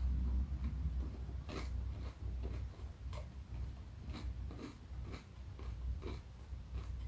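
A person chewing food close to the microphone: irregular small mouth clicks and bites, a few a second, over a low steady hum.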